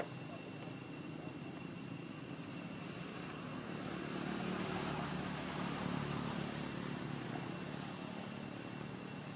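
A distant engine drone that grows louder about halfway through and then fades, over a steady high thin whine, with a brief click at the very start.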